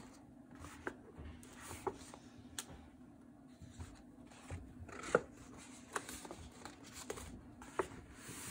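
Painted paper pages of a concertina-fold journal rustling and crinkling as they are unfolded and smoothed flat by hand, with scattered sharp paper ticks. A faint steady hum sits underneath.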